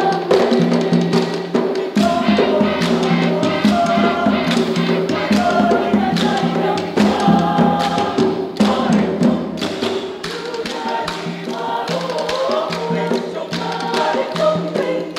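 Choir singing a Makassar traditional song arranged in parts, with bamboo struck in rhythm as percussion, giving sharp wooden clacks through the singing.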